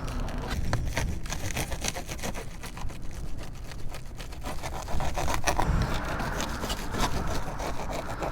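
Scrapes, knocks and rustles of a spoked dirt-bike wheel being handled and freed from its packaging, as a run of short irregular clicks over a low rumble.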